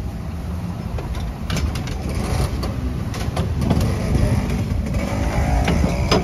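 A steady low rumble of street noise, with a few sharp clicks as metal tongs knock against the small metal apam balik pans while banana slices are laid in.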